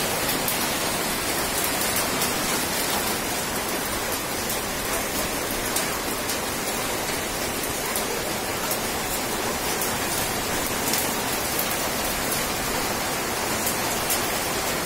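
Rain pouring steadily: a dense, even hiss dotted with many sharp ticks of impacts.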